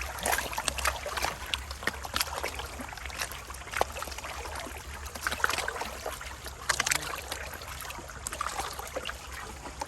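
Water splashing and trickling, with many short clicks of gravel or stones knocking together, over a steady low hum.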